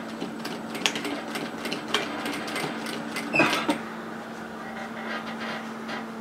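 Industrial sewing machine sewing a side seam through layered fabric: a steady motor hum with irregular clicks and ticks of the needle and of the fabric being guided.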